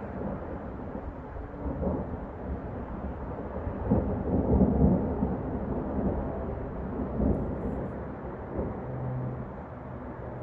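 Rolling thunder: a low rumble that builds about two seconds in, is loudest around the middle and dies away, over the steady hum of freeway traffic.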